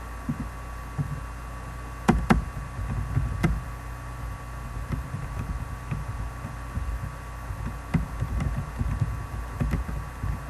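Computer keyboard typing, heard as a run of muffled taps, with a few sharper clicks, over a steady electrical hum.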